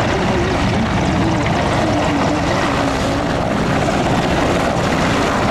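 Antonov An-2's nine-cylinder radial engine and propeller running at low power as the biplane taxis. The drone is steady, with a slight dip in pitch partway through.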